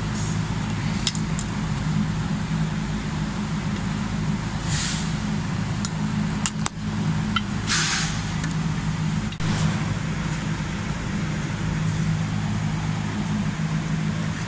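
Pliers and a flathead screwdriver working on the crimped ears of a cast metal motor mount bracket: scattered sharp metal clicks and two short scrapes, about a third and halfway through, over a steady low hum.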